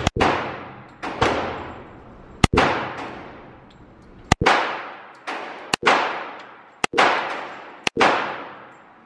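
.45 handgun fired about eight times, roughly one shot a second at an uneven pace, each shot followed by a long echo that dies away.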